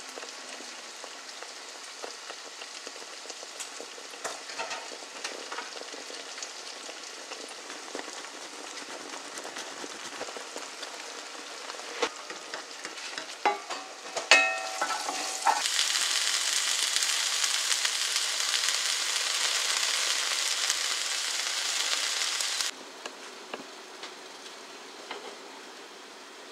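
Tomato and minced-meat sauce sizzling in a frying pan while a wooden spatula stirs it, with a handful of sharp knocks and scrapes of the spatula against the pan about halfway through. The sizzling then grows much louder for about seven seconds and cuts off abruptly.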